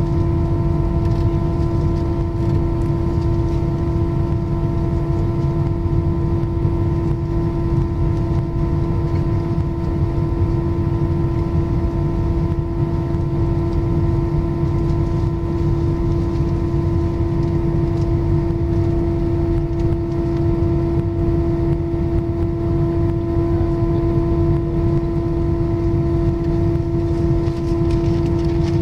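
Airbus A319's jet engines running at idle, heard inside the cabin: a steady hum with a clear held tone over a low rumble.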